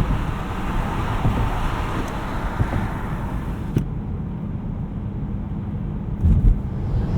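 BMW E92 M3's V8 and tyres on a snowy road, heard from inside the car: a steady low rumble while driving, the hiss above it dropping away about four seconds in. A short low thump near the end.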